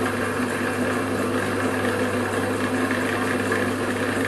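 Electric motor of a pillar drill running steadily, a constant low hum with no change in speed.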